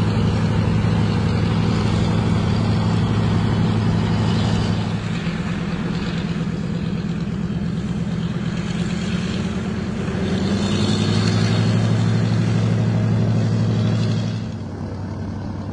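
Twin Pratt & Whitney R-1830 radial engines of a Douglas C-47 Dakota running at low power while taxiing: a loud, steady, low drone. The sound shifts about five seconds in, swells again around the middle and drops back near the end.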